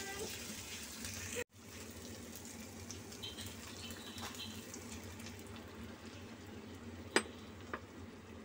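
Chicken pieces and onion frying in a nonstick pan, with a steady sizzle. The sound cuts out for a moment about a second and a half in. A sharp knock comes near the end, followed by a smaller one.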